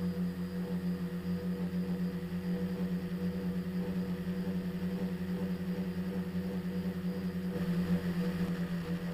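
Tricopter's electric motors and propellers humming steadily in flight, heard from the camera mounted on the craft, with a steady low pitch that swells a little near the end.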